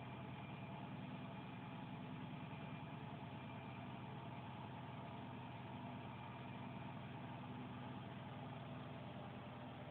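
Aquarium equipment running: a steady low hum with an even hiss over it.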